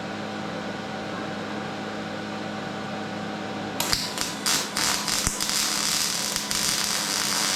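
Steady electrical hum, then from about halfway a MIG welder's arc crackling irregularly while plug welding sheet metal, now on a manual setting.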